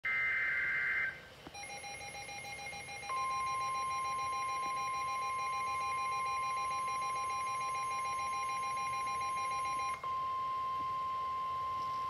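Midland NOAA weather radio receiving a severe thunderstorm warning. It opens with the last second of the buzzy digital SAME alert header. Then comes the radio's own rapidly pulsing alarm beep, and from about three seconds in the steady NWS warning alarm tone, which holds on after the pulsing beeps stop near ten seconds.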